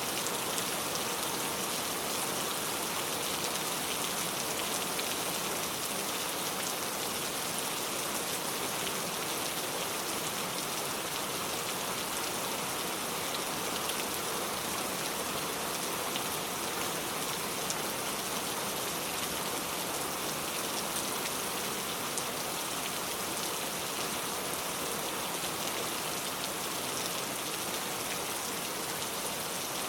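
Steady rain falling, an even hiss of many raindrops on surfaces with scattered sharper drop ticks.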